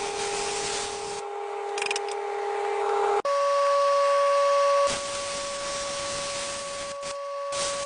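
Plasma cutter cutting steel crossmember in a truck frame: a steady hiss of air with a steady whine. The whine jumps to a higher pitch about three seconds in and breaks off briefly near the end.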